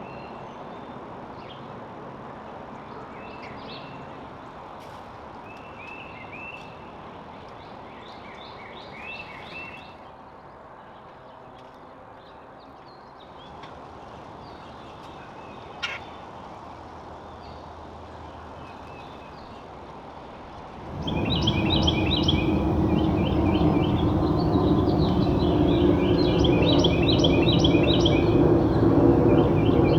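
Backyard songbirds chirping and singing in short repeated phrases. About two-thirds of the way through, a dense background noise suddenly gets much louder and the bird calls grow thicker and louder.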